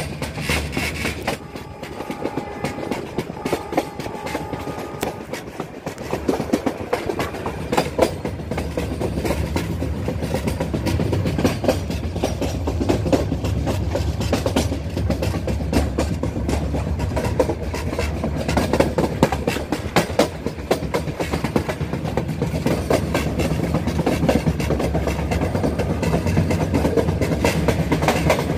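Metre-gauge passenger train running, heard from inside the coach: the wheels clatter over the rail joints in a fast, uneven run of clicks above a steady low rumble, which grows a little louder a few seconds in.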